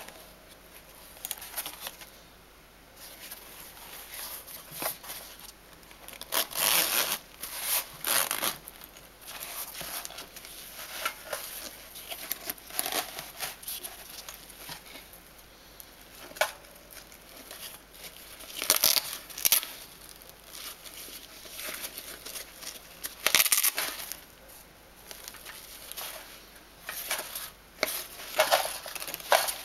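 A nylon utility pouch being handled and unzipped: fabric rustling and crinkling and zipper rasps, in irregular bursts with several louder strokes.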